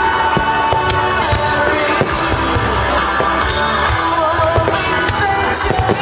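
Music with a singing voice, loud and steady throughout.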